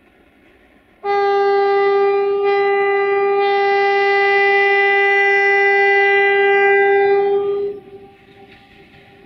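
Diesel locomotive air horn of an LDE2100 (060-DA) sounding one long, steady, single-note blast of about seven seconds, starting about a second in and cutting off to a faint lingering tone near the end.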